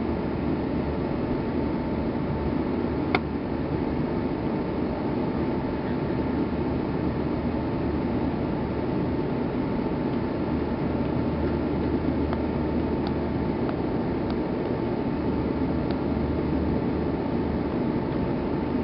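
Steady cabin noise of an Airbus A340-600 taxiing, heard from inside at a window over the wing: its Rolls-Royce Trent 500 engines at idle give an even hum with a faint steady whine, without any rise in power. A single click about three seconds in.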